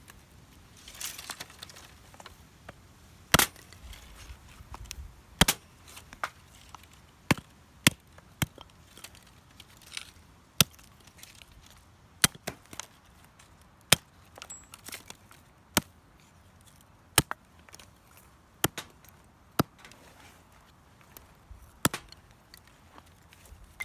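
Wood being chopped: sharp, separate strikes about every one to two seconds, some coming close together.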